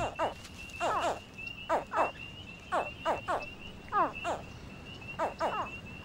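American alligator hatchlings calling from the nest: repeated short chirps that fall steeply in pitch, often in quick pairs, about once a second. A steady high trill runs behind them.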